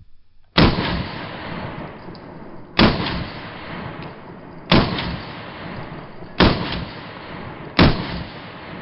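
Five unsuppressed shots from a Springfield Armory 1911 pistol in .45 ACP, fired one at a time about one and a half to two seconds apart, each sharp crack trailing off in a long echo.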